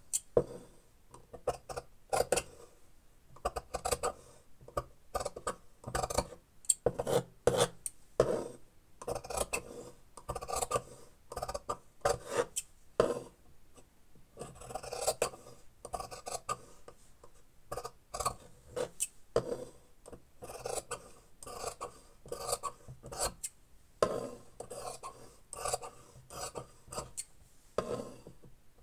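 Large dressmaker's shears cutting through fabric, a long series of short rasping snips with brief pauses between cuts.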